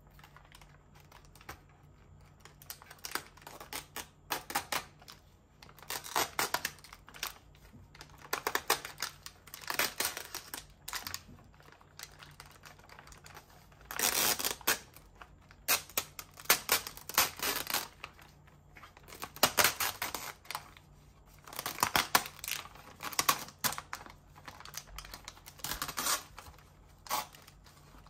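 Thin clear plastic film crackling and crinkling in irregular bursts as it is picked at and peeled back off a plastic chocolate tray. The seal is very strong and comes away in stages.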